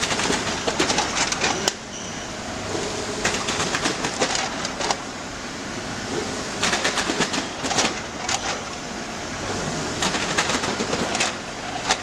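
Cup filling and sealing machine running: a steady machine noise broken by a burst of rapid clattering clicks about every three and a half seconds, each burst lasting a second or so.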